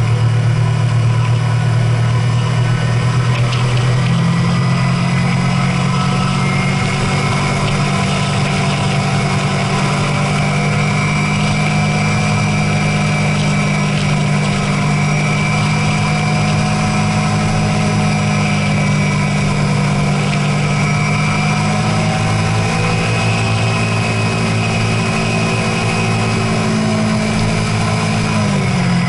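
Car engine running at a steady speed, a continuous low drone that dips slightly in pitch near the end.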